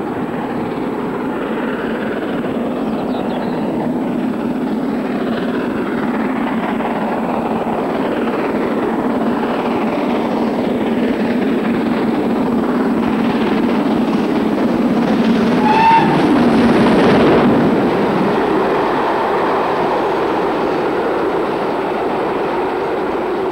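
BR Standard Class 4 2-6-4 tank steam locomotive hauling a passenger train, a steady rumble growing as it approaches and passes close by, with a brief whistle toot about two-thirds of the way in, then the coaches rolling past.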